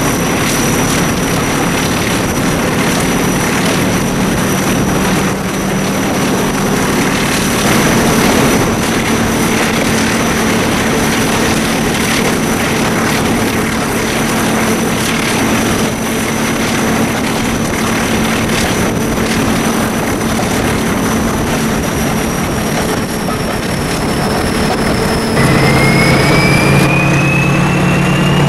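Pair of BR Class 14 diesel-hydraulic locomotives working under power, their turbocharged Paxman Ventura engines running steadily with a high whistle, heard from an open cab window with wind and track noise. Near the end the engine note changes and a whine rises in pitch.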